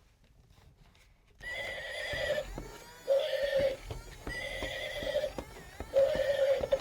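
Interactive toy horse playing its recorded sounds through a small speaker: horse neighing and clip-clopping hoofbeats in a run of repeated held electronic tones, starting about a second and a half in after a few faint taps.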